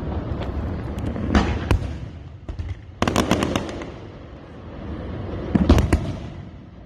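Aerial fireworks display: sharp bangs from shell bursts over a continuous low rumble. A dense run of rapid crackling comes about three seconds in, and more bangs follow near the end.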